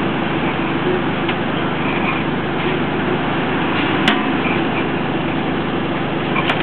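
Crane engine running steadily, with a sharp click about four seconds in and another near the end.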